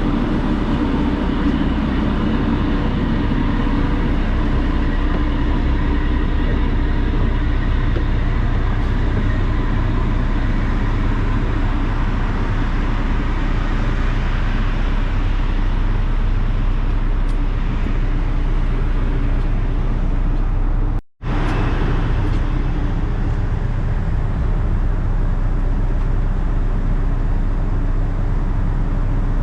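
An NYC Ferry boat under way: a loud, steady low engine hum under a constant rushing noise. The sound cuts out for a split second about two-thirds of the way through.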